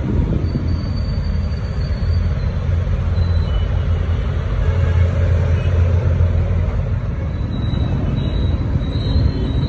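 Road traffic heard from a vehicle moving through dense city traffic: a steady low rumble of engines and tyres, with road noise over it.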